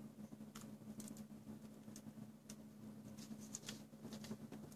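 Faint scattered scratches and small clicks of fingernails and a small knife blade picking at and trimming insulation tape on a Trustfire lithium-ion battery cell, over a steady low hum.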